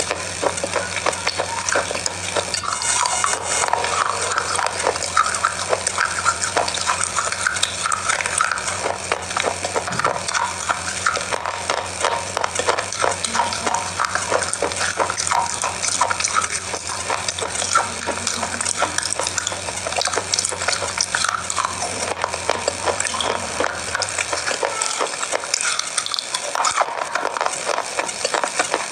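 Loud, close-miked crunching and chewing of dry, crumbly biscuit bars, a dense crackle of small crunches throughout.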